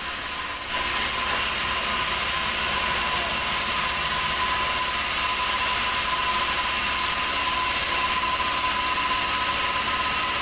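Large sawmill band saw running steadily, with a high whine over a constant rush. It gets a little louder a bit under a second in.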